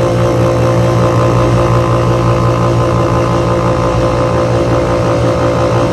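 Split-type air-conditioner compressor humming loudly and steadily while powered through a jumpered start capacitor, as it is being forced to start because it is hard starting.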